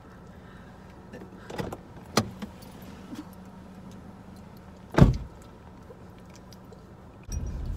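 Inside a car: a few light knocks and rattles and one loud thump about five seconds in. Near the end a steady low car rumble sets in suddenly and keeps going.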